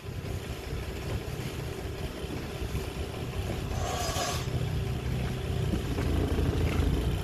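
Motorboat engine running steadily under way, a low rumble that grows a little louder toward the end, with a brief hiss about four seconds in.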